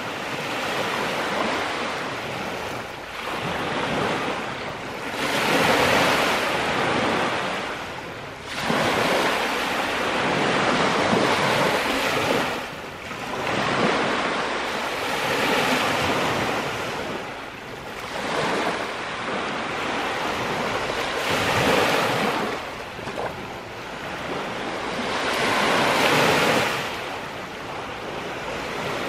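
Small Lake Superior waves washing onto a pebble and sand beach and drawing back, surging and ebbing about every five seconds.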